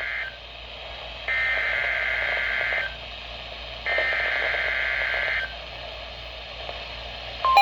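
NOAA Weather Radio SAME digital header through a Midland WR-120EZ weather radio's speaker: the end of one burst of buzzy data tones, then two more bursts of about a second and a half, a second apart. These are the coded header that announces a severe thunderstorm warning. The long steady alert tone starts right at the end.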